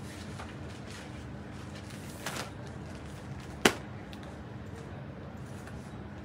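Steady room hum with handling noise as cloth is moved close to the phone: a soft rustle a little after two seconds in, then one sharp click past the middle.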